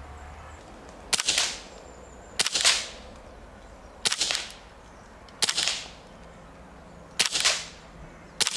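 Six shots from a silenced Ruger 10/22 semi-automatic .22 rimfire rifle, fired one after another about every second and a half. Each is a sharp crack with a brief tail.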